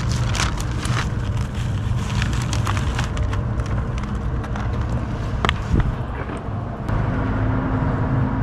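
Steady low rumble of road traffic. Over the first few seconds there are short crinkles from a plastic zip-top bag of frozen shrimp being handled.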